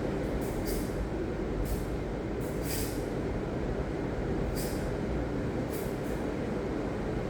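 Ocean surf: a steady low rumble of breaking waves, with short hissing splashes several times.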